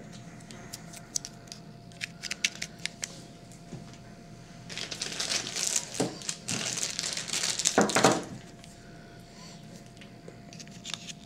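Hands working on a small plastic cellphone while fitting a SIM card: scattered small clicks and snaps, then a few seconds of plastic crinkling in the middle, then a few more clicks near the end.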